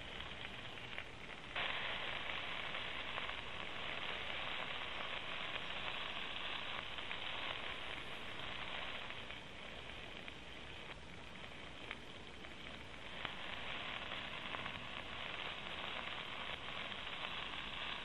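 Chunks of hot-link sausage sizzling as they fry in hot oil in a pan; the sizzle starts suddenly about a second and a half in and goes on steadily, dipping a little now and then.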